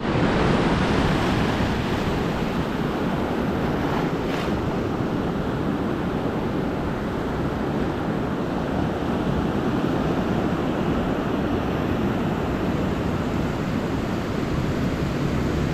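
Ocean surf washing in over a flat sandy beach: a steady, even rush of breaking waves and foam.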